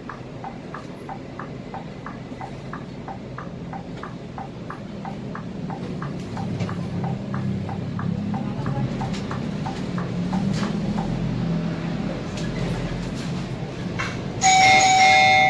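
Bus turn-signal indicator ticking, about three ticks a second, fading out about nine seconds in, over the Scania K320IA bus's engine, which grows louder as the bus picks up speed from about six seconds in. Near the end a loud chime rings out from the on-board announcement system.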